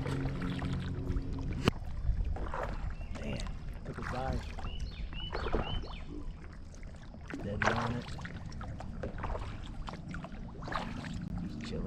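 Kayak paddle strokes dipping and splashing in river water, irregular and uneven.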